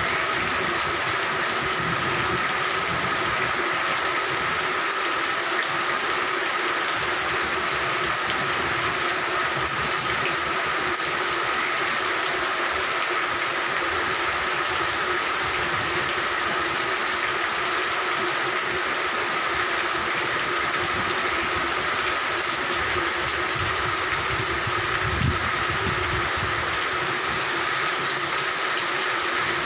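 Steady rain with a dense chorus of frogs calling, holding steady pitches throughout. A low rumble rises briefly about twenty-five seconds in.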